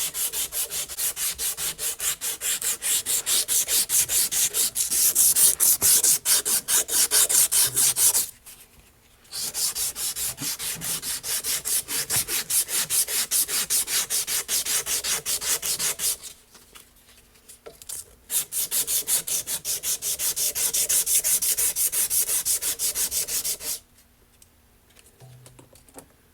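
Emery cloth rubbed back and forth by hand over the shaft of a Case 224 mower-deck spindle, smoothing it. There are three bouts of quick, even strokes, several a second, with short pauses about 8 and 16 seconds in. The rubbing stops about 24 seconds in.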